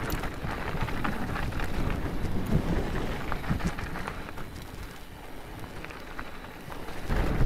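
Mountain bike rolling fast down a loose gravel trail: tyres crunching over stones and the bike rattling and clicking over the bumps. The noise eases briefly, then swells to a louder rumble near the end.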